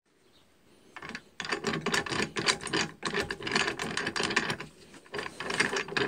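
KamAZ transfer-case differential being turned by hand through its splined shaft, the satellite and side gears clicking and rattling rapidly as they mesh. It starts about a second in and eases briefly near five seconds. The differential, with new reamed bushings, turns freely.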